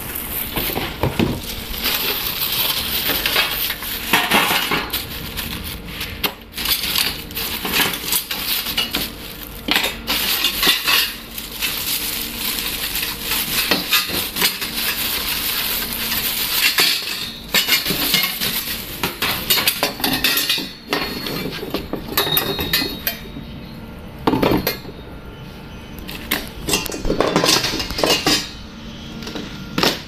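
Plastic wrapping crinkling and rustling as it is pulled off a rack's metal tubes, with the tubes clinking and knocking against each other and the board again and again.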